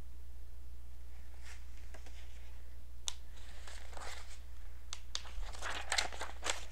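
Pages of a picture book rustling and crinkling as they are handled and turned, with a few small clicks, over a low steady hum.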